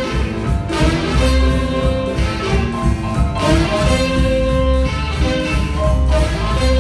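Live blues band playing an up-tempo jump-blues piano number: piano with bass and drums, and long held notes over them.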